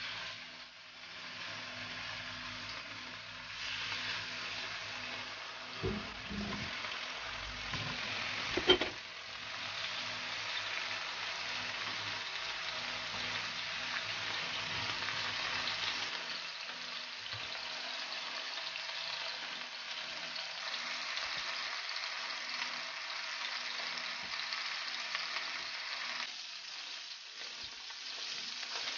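Pork loin steaks sizzling as they sear in hot olive oil in a frying pan over high heat, a steady hiss, with a couple of short knocks as more pieces are laid into the pan with chopsticks.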